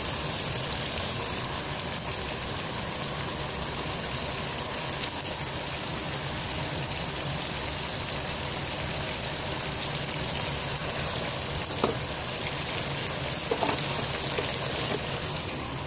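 Cubed gourd sizzling steadily in hot oil and liquid in a cooking pot, an even hiss, with a couple of faint clicks in the last few seconds.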